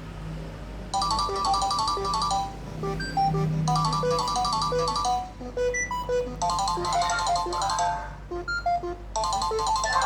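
Nokia 6100 ringtone played through the loudspeaker of a Nokia 3110 classic. A synthesized melody starts about a second in, with short phrases of quick high notes repeating every couple of seconds over a line of single lower notes.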